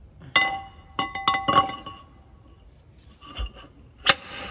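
Metal engine parts clinking together on the bench: a ringing clink, a quick cluster of clinks, a dull knock, then one sharp clink near the end.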